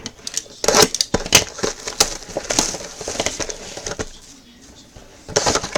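Plastic wrapping and cardboard packaging of a sealed baseball trading-card box crinkling and crackling as it is handled and opened, a dense run of irregular crackles with a short lull about four seconds in before a fresh burst.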